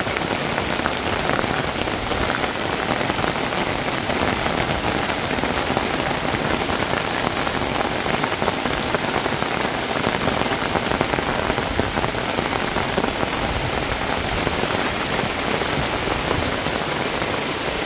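Heavy rain falling steadily onto a camping tarp overhead and onto waterlogged ground.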